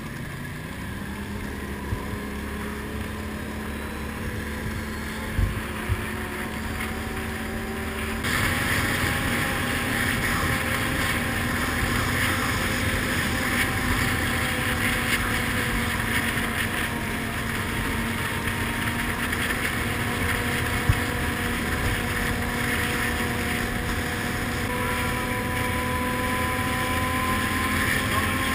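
ATV engine running as the quad drives along a rough track, heard from the quad itself, with some wind on the microphone. The engine note rises as it picks up speed near the start. About eight seconds in the sound turns abruptly louder and brighter, and a few sharp knocks from bumps come through.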